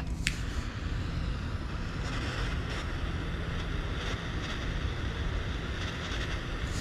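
Wind buffeting the microphone: a steady low rumble with a noisy hiss above it.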